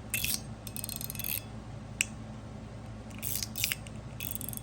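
01EDC titanium Mini-Burger three-layer fidget slider being slid back and forth, its plates clicking into their spring-and-ball detents in quick clusters of clicks, with one sharp single click about two seconds in.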